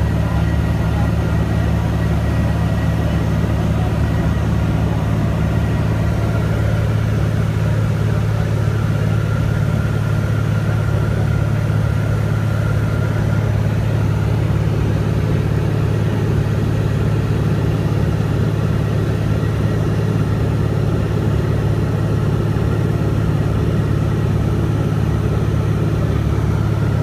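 Steady drone of a light airplane's engine and propeller, heard from inside the cabin, at an even cruise with no change in pitch.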